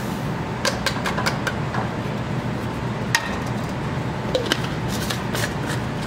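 Scattered clicks and knocks of a plastic Magic Bullet blender cup being handled and fitted for grinding, with one sharper knock about halfway through. Under them runs the steady rush of a lab fume hood's exhaust fan.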